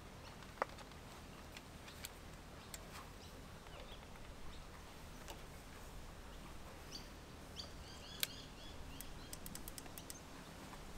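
Quiet outdoor ambience with a low steady background rumble. A bird gives a short run of high chirps about seven to eight seconds in, and a few light clicks and ticks are scattered through, with a quick cluster near the end.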